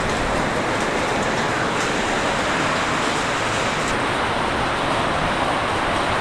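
Heavy rain pouring down in a steady, loud hiss, with a few faint sharp ticks.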